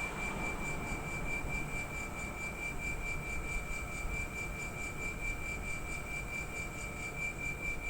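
Air-conditioner outdoor unit compressor running with a steady high-pitched whine over a low rumble, the abnormal compressor noise being investigated.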